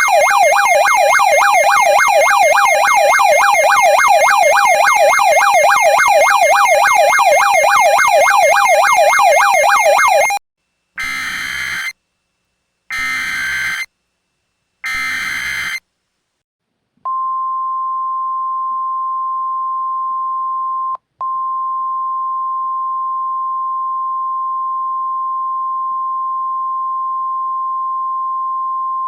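Simulated emergency alert sequence: a loud electronic siren warbling rapidly up and down, about three sweeps a second, stopping about ten seconds in; then three short raspy data bursts, the EAS/SAME digital header sent three times; then the steady 1050 Hz NOAA Weather Radio warning alarm tone held for about thirteen seconds, with a brief break early in it.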